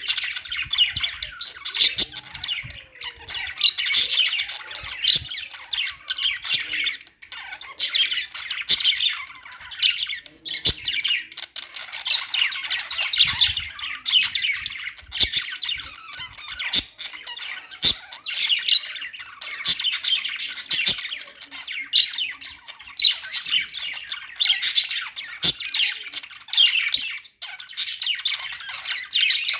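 Budgerigars chattering and warbling, a dense run of rapid chirps, squawks and sharp clicks.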